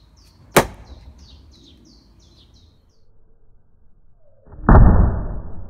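Thrown axe striking a wooden throwing target set with empty plastic bottles: a sharp hit about half a second in, then a louder crash about a second long near the end. A bird chirps repeatedly in the background during the first half.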